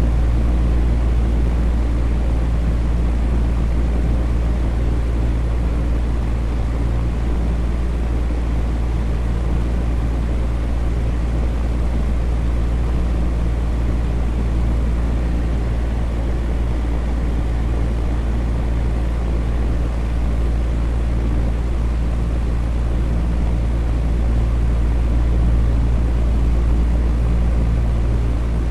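Electric fan running steadily, an even rushing noise weighted heavily to the low end with a steady low motor hum underneath.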